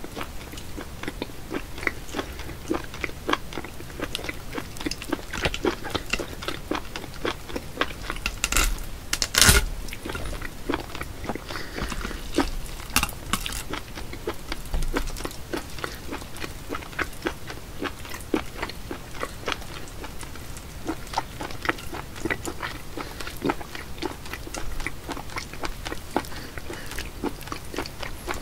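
Wet, sticky clicking and squelching of a live octopus being handled, its tentacles pulling and slapping on a ceramic plate under fingers, a steady run of small clicks with a brief louder burst about nine seconds in.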